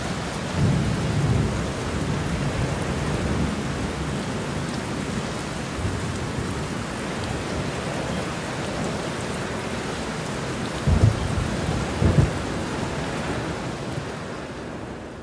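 Intense summer thunderstorm: heavy rain falling steadily, with a rolling rumble of thunder about a second in and two sharp thunder cracks around eleven and twelve seconds in. The sound fades out near the end.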